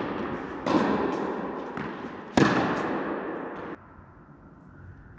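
Tennis ball struck by rackets in a rally: two loud sharp pops about a second and a half apart, with fainter knocks between them, each ringing on in the echo of an indoor tennis hall. The sound drops away suddenly a little past halfway, as the point ends.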